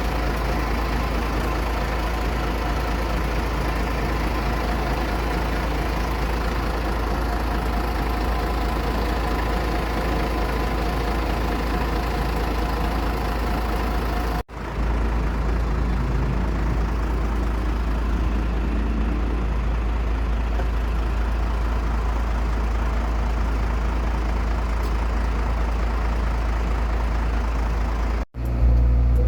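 An engine running steadily with a deep, even hum and a faint steady whine, broken twice by brief cuts to silence, about halfway through and near the end.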